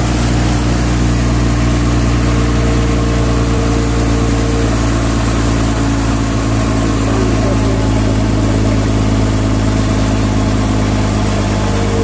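Engine of a large high-clearance truck running steadily as it drives through deep floodwater, with water churning and washing around it. A higher steady whine joins for a few seconds about two seconds in.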